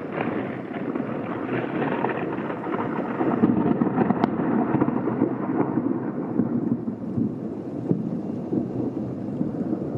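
Rolling thunder: a long, crackling rumble that starts suddenly and keeps going at an even level.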